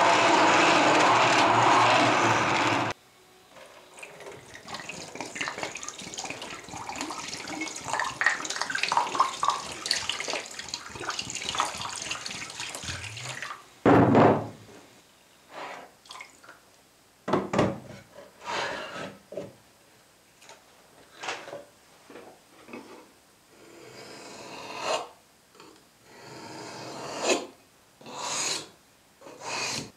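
A bench grinder's buffing wheel runs with a steady whir for the first three seconds and stops. Water then runs into a sharpening tray for about ten seconds, followed by a single loud thump. From there to the end, a knife blade is drawn across a wet whetstone in separate rasping strokes.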